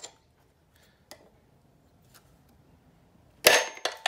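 Claw hammer striking a solid steel punch set on the crank end inside the flywheel of a 9.8 hp Tohatsu outboard, to knock the flywheel loose from the crankshaft. A few light taps, then two sharp ringing metal blows near the end.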